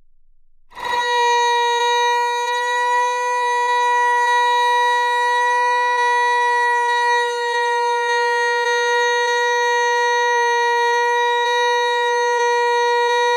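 A click, then a loud, steady, unbroken pitched tone that holds on without changing.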